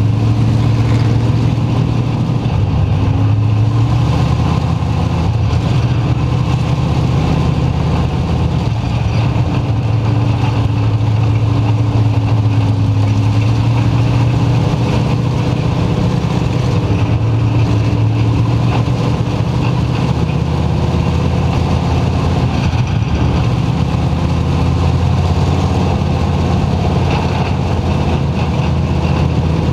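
Dirt-track race car engine running hard at racing speed, heard from inside the cockpit, its pitch easing off and climbing back several times as the car goes through the turns and down the straights.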